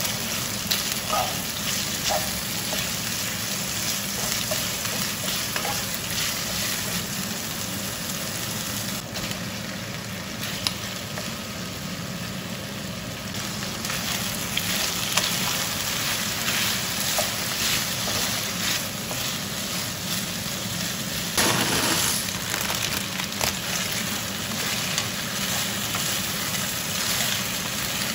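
Chicken and potato pieces frying in a nonstick pan, a steady sizzle with small clicks and scrapes of a wooden spatula stirring. About three quarters of the way through there is a brief louder burst.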